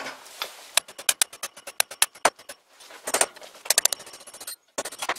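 Rapid clicking from a home-made tool-post drill attachment whose spindle is running without bearings: a quick run of about eight clicks a second for about a second and a half, then a few short clusters of clicks.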